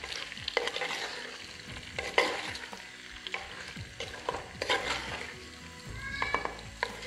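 Sliced potatoes sizzling in hot oil with spices in a clay handi while a spatula stirs them, scraping and knocking against the pot several times.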